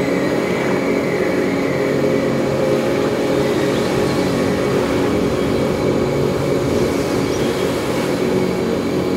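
Ambient background music: sustained low drone tones held steady over an even, noisy wash.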